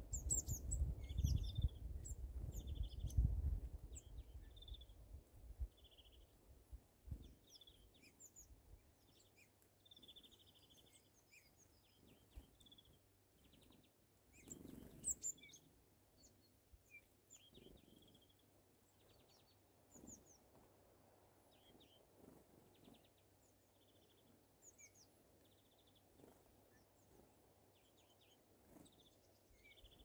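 Small songbirds calling at a feeder: many short buzzy notes and thin high chirps throughout. A low rumble fills the first few seconds, and a brief rustle comes about halfway.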